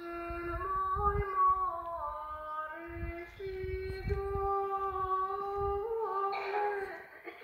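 A high voice singing a slow chant in long held notes, stepping slowly from pitch to pitch, with low rumbling noise underneath at times.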